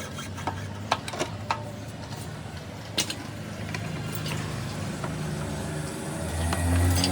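Sharp metallic clicks and knocks from hand tools working on a motorcycle, several in the first half, over a steady low engine hum that swells louder near the end.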